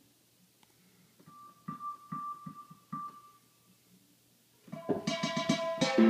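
Synthesizer keyboard playing through speakers while its preset sounds are tried: a few soft short notes over a thin held high tone, then near the end a loud burst of rapid bright notes with many overtones.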